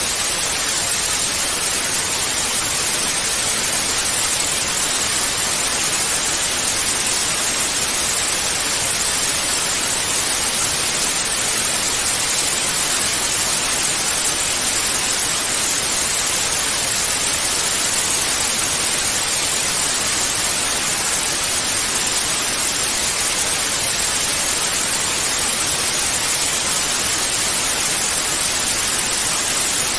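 Analogue TV static: a steady, even hiss of white noise with no changes or breaks.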